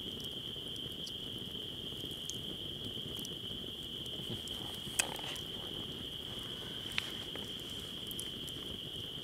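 A steady high-pitched night chorus of crickets, with a campfire crackling and a few sharp pops, the loudest about five seconds in and another about seven seconds in.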